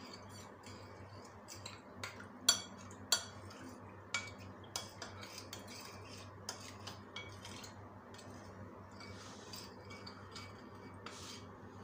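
A metal spoon stirring custard powder into milk in a ceramic bowl, scraping and clinking irregularly against the bowl, with two sharper clinks about two and a half and three seconds in. It is being mixed well to break up any lumps.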